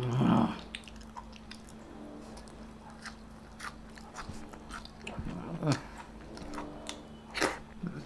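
Close-miked mouth sounds of a person eating: chewing and biting with many sharp little crunches and clicks. There is a brief low hum right at the start.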